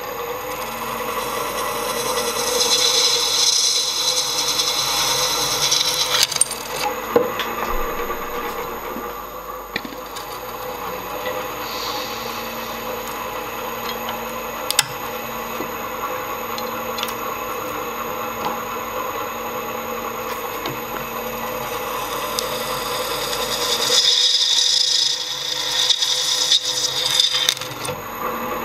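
Drill press running with a steady motor hum while a small twist drill cuts through a clamped metal bar. The cutting noise grows louder and higher for a few seconds near the start and again near the end, with a few sharp clicks and taps.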